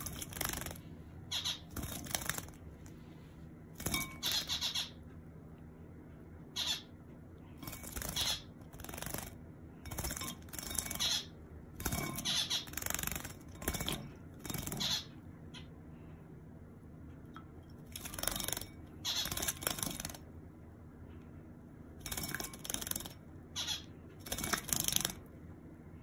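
A Java sparrow bathing in a shallow ceramic water bowl, splashing in short, repeated bursts, with small-bird chirps from a zebra finch.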